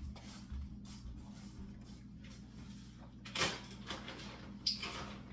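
A few brief knocks and rustles from household handling, like a cupboard or door being worked, with the loudest about three and a half seconds in and another near the end, over a low steady hum.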